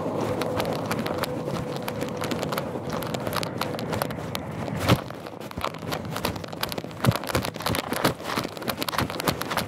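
Footsteps of someone walking on gravelly sand and stones, about two steps a second, with one louder knock just before halfway.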